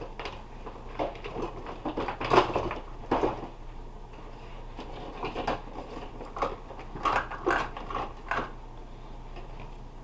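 Dishes and containers being put away: a run of short knocks and clinks of dishware set down on shelves and against each other, in two bunches with a short lull between.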